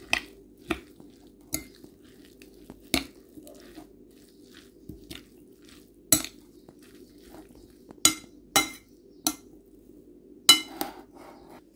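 A metal utensil clinking and scraping against a glass salad bowl while shredded cabbage salad is tossed: about a dozen irregular clinks, a few ringing briefly, the loudest near the end.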